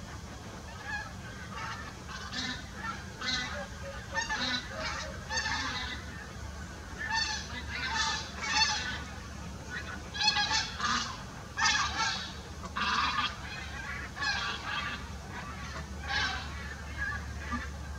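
Whooper swans calling, a flock of loud honking, bugling calls repeated and overlapping, thickest in the middle of the stretch.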